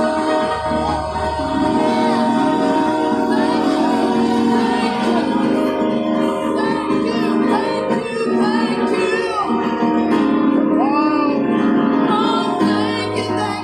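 Church praise team singing a gospel song with instrumental backing, sung voices over sustained chords and a bass line.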